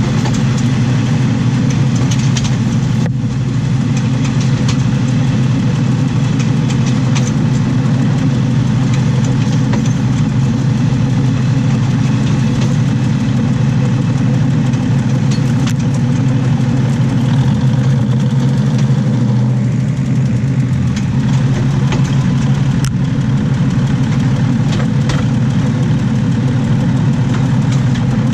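Under-floor running noise of a diesel railcar in motion: a loud, steady low drone from the engine and running gear, mixed with wheels rolling on the rails and scattered sharp clicks.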